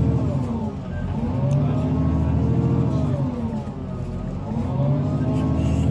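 Volvo B9TL double-decker bus's diesel engine running under way. Its note twice sinks and then climbs again, each dip lasting a second or two.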